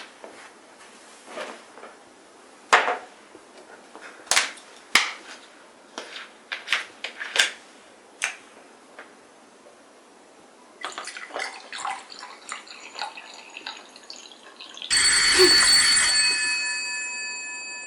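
A scattered series of sharp knocks and clicks, then a doorbell rings once, loud and sudden, its several bell tones dying away over about three seconds.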